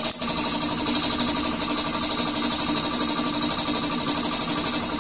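A steady machine hum with a few even tones, running without change.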